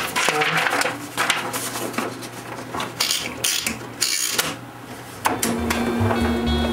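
IBM Selectric II electric typewriter typing: a fast, irregular run of clacking strikes over the steady hum of its running motor. Music comes in about five seconds in.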